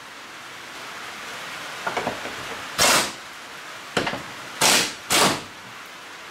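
Short hissing bursts from a pneumatic air tool, four in quick succession about a second apart, after a few light clicks.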